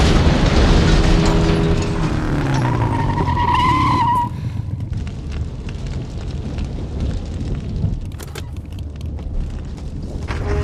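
Film soundtrack of a motorcycle riding away from an explosion: the engine passes with a falling pitch over the rumble of the blast, and a tire squeals about three to four seconds in. After a sudden drop in loudness, the burning wreck goes on rumbling with scattered crackles.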